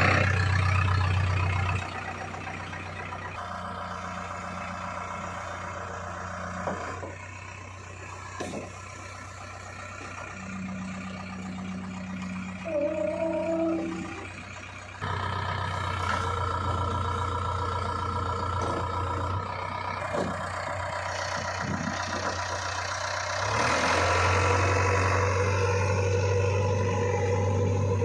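JCB 3DX backhoe loader's diesel engine running steadily, louder in some stretches and quieter in others. A short wavering tone sounds near the middle.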